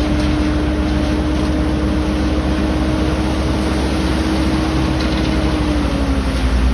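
Hydraulic excavator's diesel engine running steadily with a low rumble and a steady whine that drops slightly in pitch about six seconds in.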